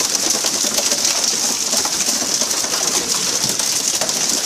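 Steady hissing spray of the water sprinklers along a pole-and-line tuna boat's side, with scattered splashing on the sea surface.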